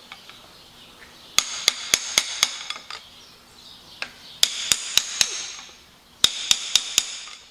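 Hammer tapping a seal-removal tool into the groove at the head gland of a John Deere loader's hydraulic curl cylinder, steel on steel. Three quick runs of light metallic taps, about four a second, each with a short ring, as the tool is worked further in.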